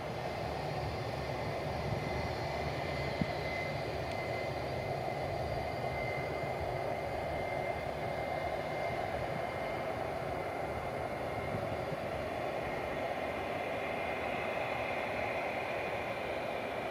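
Distant jet airliner engines running on the runway: a steady noise with a thin high whine over it.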